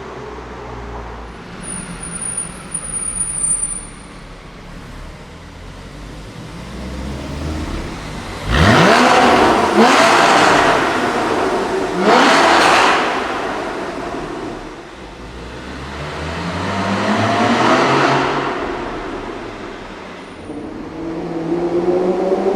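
Supercar engines accelerating hard through a tunnel, echoing off the walls. The loudest car revs up sharply about nine seconds in, breaks off, and climbs again around twelve seconds. A second car swells past and fades near eighteen seconds, and another starts building near the end.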